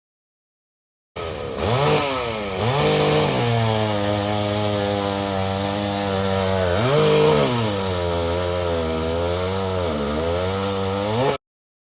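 Vintage two-stroke chainsaw engine running and being revved up and down several times, its pitch rising and falling. It cuts in abruptly about a second in and cuts off abruptly near the end.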